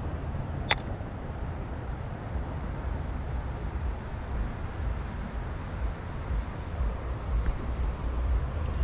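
Steady low rumbling noise typical of wind buffeting an outdoor microphone, with one sharp click under a second in.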